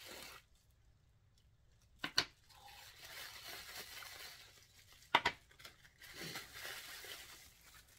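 Packaging crinkling and tearing as small dip powder containers are taken out of a box, with two sharp clicks, about two seconds in and about five seconds in.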